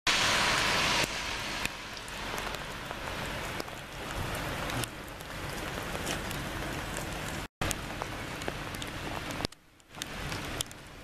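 Steady rain falling on wet pavement and puddles, an even hiss with single drops ticking close by. It is louder for the first second, breaks off briefly about seven and a half seconds in, and dips quieter near the end.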